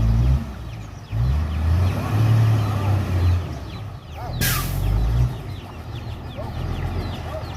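Heavy diesel earthmoving machinery running, its low engine note rising and falling in load, with chickens clucking in the background. A brief falling hiss sounds about halfway through.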